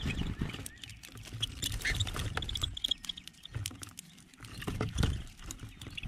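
Small songbirds feeding on a plastic platform feeder right at the microphone: irregular tapping and clicking of beaks and feet on seeds and tray, with dull thumps. A few faint high chirps come about halfway through.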